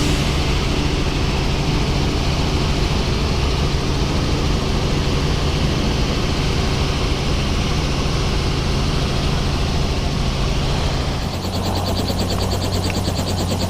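Helicopter engine and rotor running steadily, a constant low drone. About eleven seconds in the sound changes abruptly and a fast, even pulsing comes in over the drone.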